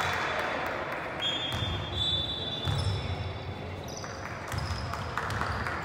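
Basketball game in a gym: a ball bouncing on the hardwood court several times, with thin high-pitched tones coming and going over the hall noise.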